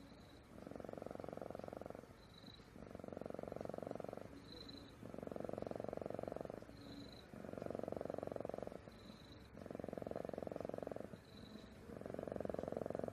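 Sleepy domestic cat purring in long pulses with short pauses between, about one every two seconds. A faint high-pitched whistle comes in most of the pauses.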